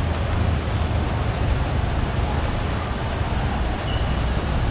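Steady low mechanical rumble under an even hiss, with a short high beep about four seconds in.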